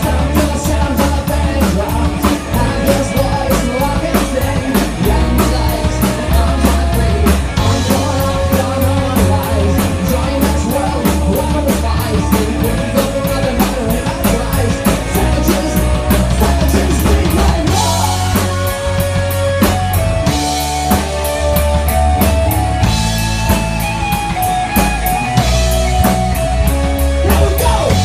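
A live rock band playing a jam: electric guitars, keyboard and a drum kit keeping a steady beat, with a man singing.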